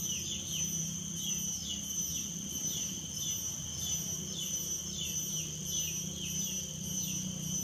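Insect chorus in grassland: a steady high trill, with short falling chirps repeating about twice a second, over a steady low hum.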